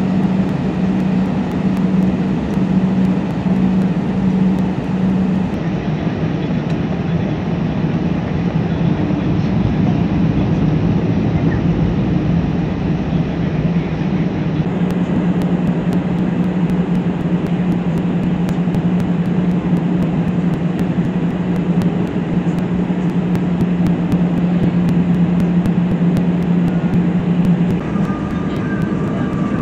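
Airbus A320's jet engines and rolling wheels heard from inside the cabin while taxiing: a steady loud drone over a rumbling noise. Near the end a thin, higher steady tone joins in.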